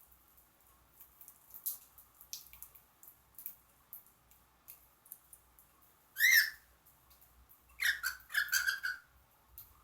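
Pet birds pecking at millet seed, with scattered small clicks of seed being husked. One loud call comes about six seconds in, then a quick run of chirps near the end.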